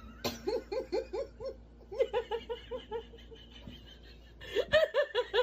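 A person laughing hard in quick, rhythmic "ha-ha" pulses, in three runs, the last one near the end the loudest.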